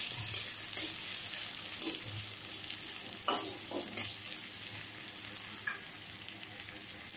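Sliced onions sizzling steadily in hot oil, stirred with a metal spatula that scrapes and clinks against the pan a few times.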